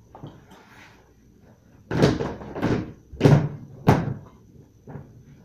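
Plastic storage bin and its snap-on lid being handled: a run of four hollow plastic knocks about half a second apart as the lid is set on and pressed shut, with lighter knocks before and after.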